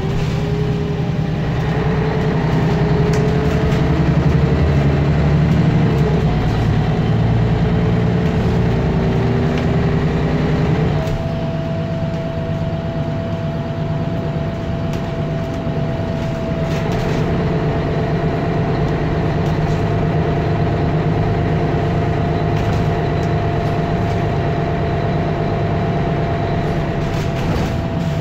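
Mercedes-Benz Citaro O530G articulated bus's diesel engine running, heard from on board. The engine is louder and shifting in pitch for the first ten seconds or so, then settles slightly quieter as a steady whine comes in.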